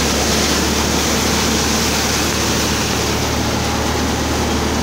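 Thresher machine running steadily while crop is fed in by hand: a continuous loud mechanical rush over a steady low hum.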